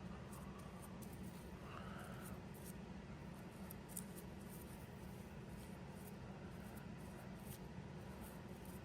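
Faint scratching and light ticks of a small brush working liquid bluing onto small steel ratchet parts, over a low steady hum.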